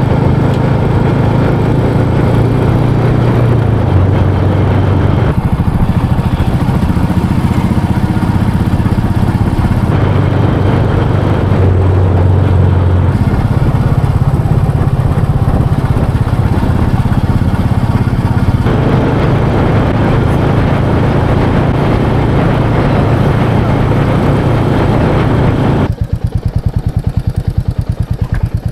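Motorcycle engine running under way with steady engine and road noise and a few shifts in engine pitch; about three seconds before the end the rushing noise drops away and the engine settles to an even, pulsing idle as the bike stops.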